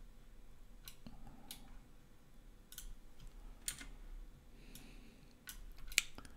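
Faint computer mouse and keyboard clicks, about seven scattered irregularly, with one sharper click near the end.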